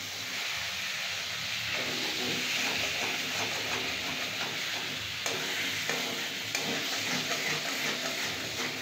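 Potato pieces sizzling in hot oil in a metal kadai while a metal spatula stirs and scrapes them around the pan. A few sharp clicks of the spatula against the pan come about five to seven seconds in.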